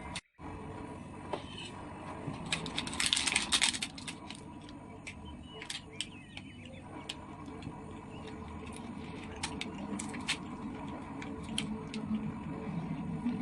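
Scattered light clicks and taps over a steady low hum, with a denser run of clicks about three seconds in.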